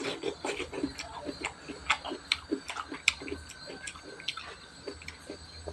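Close-miked chewing of raw cucumber: a run of short, crisp crunches, about three a second, thinning toward the end.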